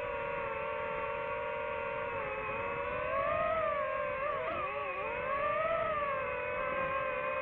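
DJI FPV drone's motors and propellers whining. The pitch holds steady, rises about three seconds in, dips briefly, then rises and falls again as the throttle changes through the turns.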